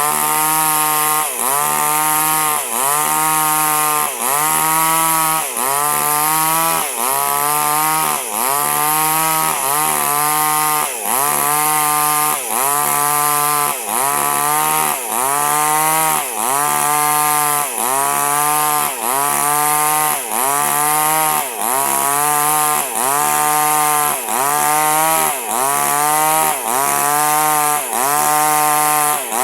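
Small chainsaw cutting durian wood, running at full throttle. Its engine pitch dips and recovers in an even rhythm, about every second and a half, as the chain bites into the wood.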